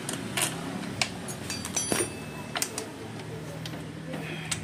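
Scattered sharp clicks and light knocks, about six of them, as a Honda scooter's plastic CVT cover is handled and pulled loose, over a faint steady low hum.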